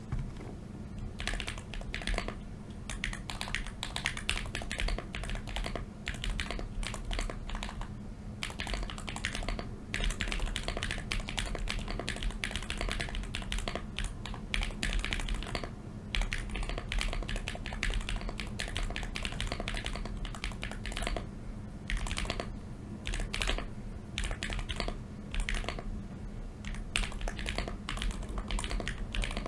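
Typing sound test on a hand-built Contra 40 ortholinear keyboard with lubed Kailh Polia tactile switches, its case stuffed with paper towels for a more poppy sound: fast runs of keystrokes with a few short pauses.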